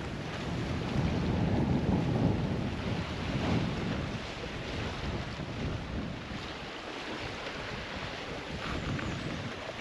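Wind buffeting the microphone over the steady rushing wash of waves on the Lake Superior shore. It is loudest in the first few seconds, then eases.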